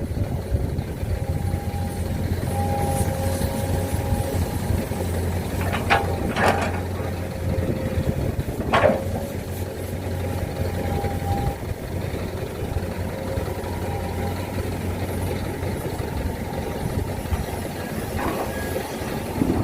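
Heavy diesel machinery running steadily with a low rumble, broken by a few sharp knocks about six and nine seconds in, and a faint tone that comes and goes.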